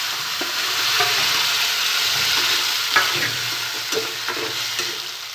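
Wet chutney paste sizzling loudly in hot oil in a kadhai, just after being added, while a spatula stirs it with scattered scrapes and knocks against the pan. The sizzle eases a little near the end.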